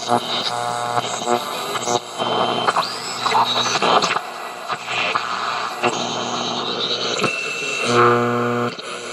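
Magnavox D7160 radio-cassette recorder's AM band being tuned across the dial: static and hiss with buzzing hum and short whistling tones, and no station coming in clearly.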